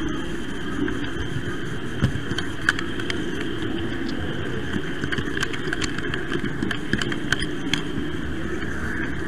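Model train running along its track with an onboard camera: a steady motor hum and wheel rumble, with a few sharp clicks from the wheels on the rails.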